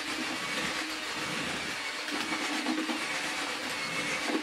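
Cordless drill with a paddle mixer running steadily, churning damp groundbait in a plastic bucket to aerate the mix.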